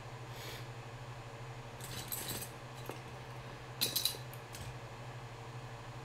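Light metallic clinks and rattles of small hand tools handled at a soldering bench: a faint one about half a second in, a cluster around two seconds, and the loudest around four seconds, over a steady low hum.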